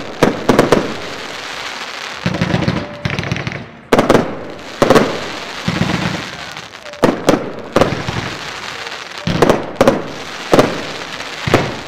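Zena Glitter Willow firework battery firing its shots. There is a series of sharp, irregularly spaced bangs as the shells launch and burst, with a continuous rushing noise in between.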